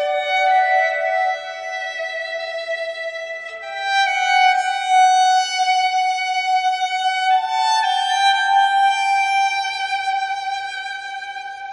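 Background music: a slow violin melody of long held notes that move from one pitch to the next every second or two.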